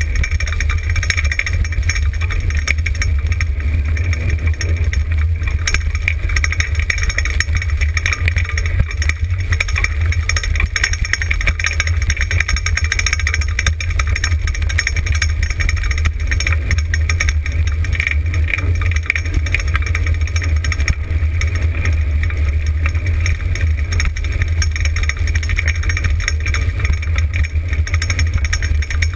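Dryland dog-sled rig rolling fast over a dirt and gravel trail behind a three-husky team: a steady low rumble and rattle of the wheels and frame.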